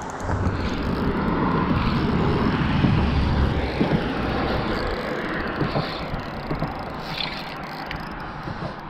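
Vehicle rumbling past on a road bridge, swelling over the first few seconds and slowly fading, with small clicks near the end.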